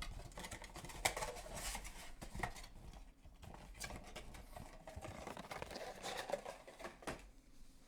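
Trading-card packaging and cards being handled: light rustling with scattered small clicks and taps.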